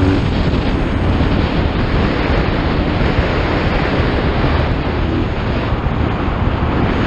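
Wind buffeting the camera microphone of a motorcycle riding at speed, a loud steady rush with the bike's engine faintly audible underneath.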